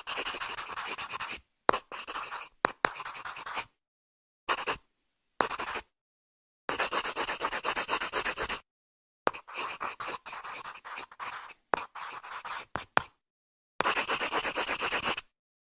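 Pen scratching across paper in short bursts of quick strokes with silent gaps between, as the outlines of a drawing are gone over to thicken them.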